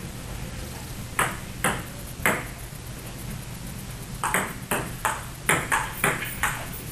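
Table tennis ball clicking: three single knocks about half a second apart, then from about four seconds in a fast rally, the ball striking paddles and table in quick alternation about three times a second.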